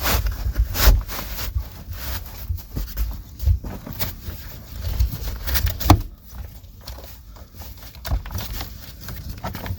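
Cordura seat cover rustling as it is worked down over a truck headrest, with irregular thumps and knocks of hands against the seat, a few louder knocks about a second in, at three and a half seconds and near six seconds.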